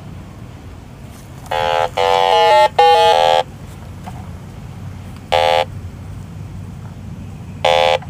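Electronic refrigerant leak detector beeping at an AC service valve: a quick run of three beeps that step in pitch about a second and a half in, then single short beeps a couple of seconds apart. The slow beeping shows no leak at the freshly taped and tightened valve cap.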